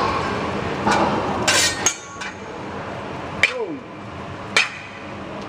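Metal teppanyaki spatulas clinking against each other and the steel griddle during a chef's spatula-juggling routine: a quick cluster of ringing clinks about one and a half seconds in, then two single sharp clinks about a second apart. A sizzling hiss from the griddle dies down about two seconds in.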